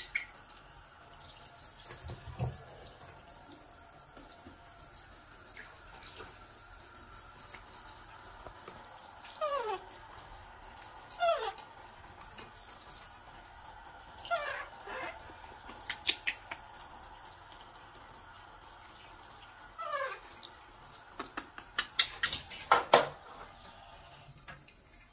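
Handheld shower head running, the spray pouring steadily over a baby monkey and into a plastic tub, and stopping shortly before the end. A few short squeaks falling in pitch from the baby monkey, and some sharp knocks and splashes near the end.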